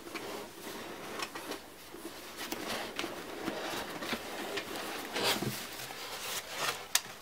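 Cardboard box being handled and its lid pulled off: soft scrapes, rustles and small taps of cardboard, with a sharper click near the end.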